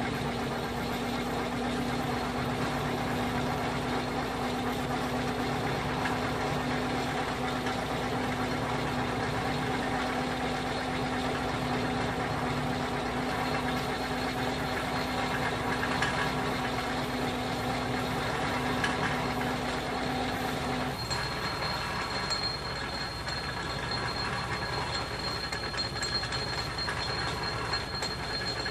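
Atlas metal lathe running in back gear while a 1-inch twist drill in the tailstock chuck bores through a workpiece: steady machine hum and gear noise with the sound of the drill cutting. About two-thirds of the way through, the steady hum drops out while the machine noise carries on.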